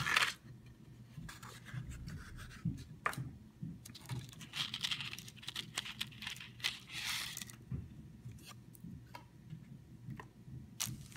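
Hands handling a small cardboard box and the miniature's packaging: rustling and scraping with scattered sharp clicks. There are two longer rustles about four and seven seconds in.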